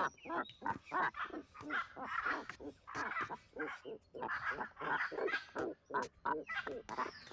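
Hyacinth macaw giving a rapid series of short calls from inside its tree-cavity nest, about three a second.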